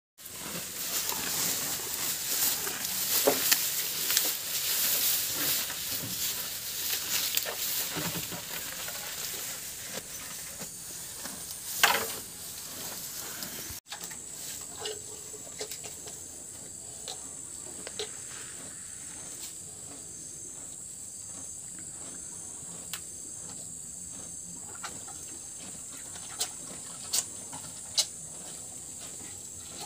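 Cattle tearing and chewing fresh grass and leafy stems, a rustling crunch with sharp snaps, for about the first 14 seconds. Then a cow and calf drink from a plastic bucket: quieter scattered slurps and knocks over a steady high-pitched hum.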